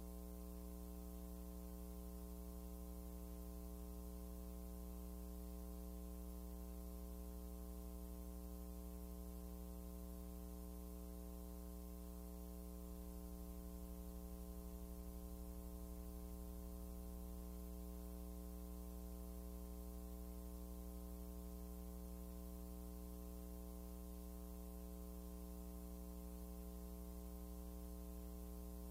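Steady electrical mains hum: a low buzz with a stack of overtones, holding unchanged throughout.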